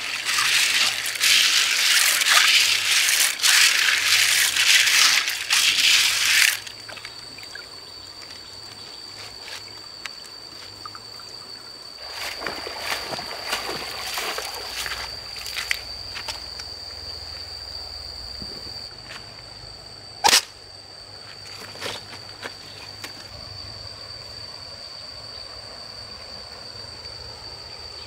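Water splashing and pouring for about six seconds, then a quieter stretch with a steady high whine, a softer splashing spell, and one sharp knock.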